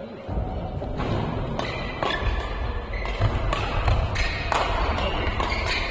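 Badminton rally: rackets striking the shuttlecock in quick irregular exchanges, with shoe squeaks and footfalls on the court floor over a low hall rumble that starts a moment in.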